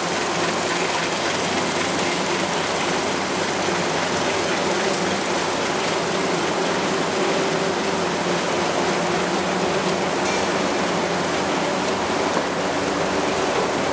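Automatic paper collator running, a steady mechanical whirr and rattle of its feed rollers and drives with paper sheets moving through.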